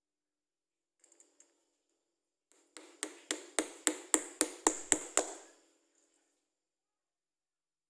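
A quick run of about nine sharp taps, about three a second, each with a short ringing tail: a hard tool tapping on metal, as when knocking at carburettor parts during disassembly. A few faint ticks come before it.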